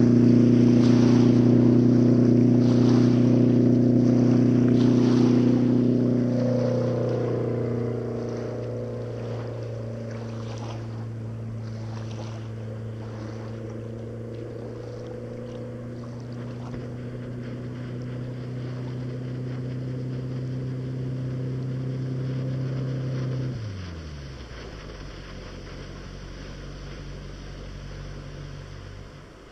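Glastron 1700's boat engine running steadily, close by. About six seconds in its pitch eases down, and shortly before the end it drops sharply to a low idle.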